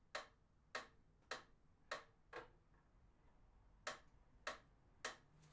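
Faint, evenly spaced ticking of a pyramid-shaped mechanical metronome, a little under two ticks a second.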